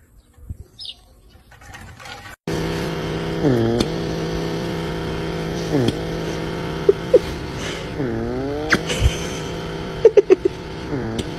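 After two quiet seconds, a small electric motor starts and whirs steadily, while a pitched sound dips down and rises back up about every two seconds; a few sharp clicks come near the end.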